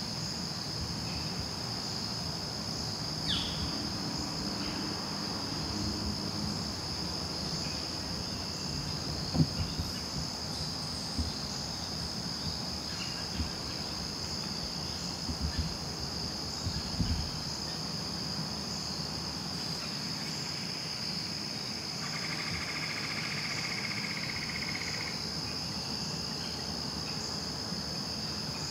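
Steady, high-pitched chorus of crickets and other insects. A few low knocks and thuds stand out about 9 seconds in and again around 15 to 17 seconds, and a short buzzy call runs for about three seconds around 22 seconds in.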